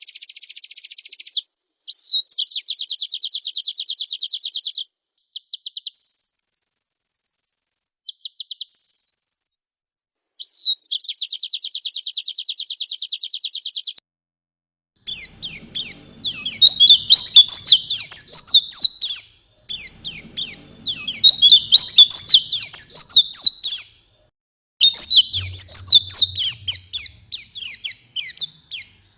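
White-eye (pleci) song, heavy with mimicked fill-in phrases. First come even, rapid trills and two short buzzy high notes, separated by abrupt silences. From about halfway, three long bursts of fast, varied twittering follow.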